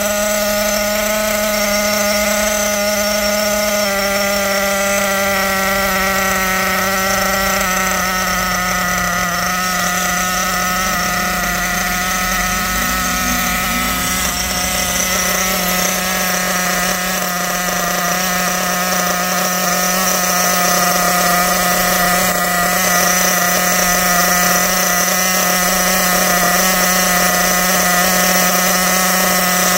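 Small nitro glow engine of a Kyosho Inferno Neo ST 3.0 1/8-scale RC truggy idling steadily, a high buzzing drone; its pitch dips slightly a few times in the first ten seconds.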